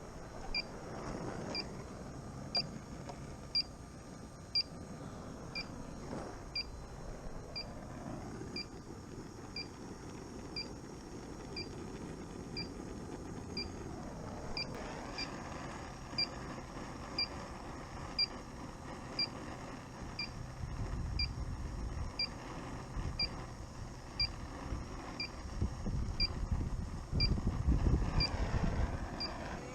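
Combustible gas detector beeping steadily, a short high beep about once a second. About halfway a low rushing noise comes in, louder near the end.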